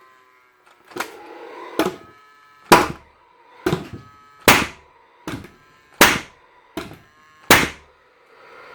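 Paslode IM350+ gas nail gun being worked over and over: about nine sharp clacks, roughly one every 0.8 s, with the gun's fan whirring faintly between them. It doesn't sound healthy, which the owner puts down to a flat battery.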